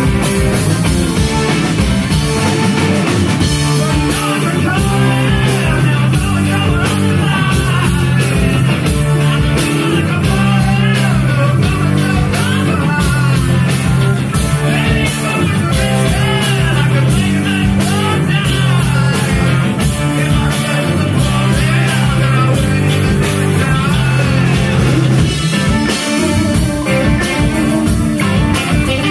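Live rock band playing loud, with electric guitar, electric bass and drum kit, and a wavering, bending lead line over the band through most of it.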